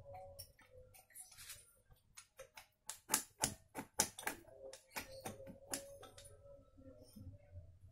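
Honda GL Max Neotech cylinder block being worked down over its studs and the piston: a string of sharp metallic clicks and taps, densest and loudest around the middle.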